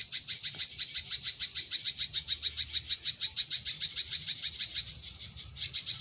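A rapid, even train of high chirps, about seven a second, over a thin steady high whine; the chirping weakens about five seconds in.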